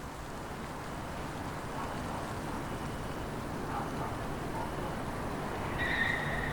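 Wind blowing through trees: a steady rushing noise that swells gradually. A brief high tone sounds near the end.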